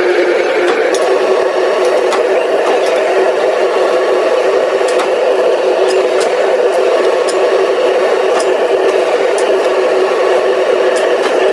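Industrial machinery running steadily with a constant hum, with scattered sharp clicks and rattles.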